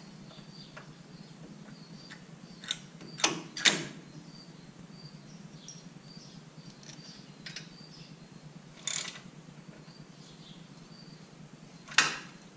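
Scattered sharp metal clicks and clanks of a disc-brake caliper being fitted back over the rotor and bolted on, about five in all, over a faint steady hum.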